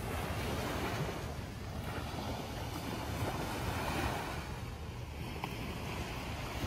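Small waves breaking and washing up a sandy beach, a steady surf wash that swells and eases, with wind buffeting the microphone.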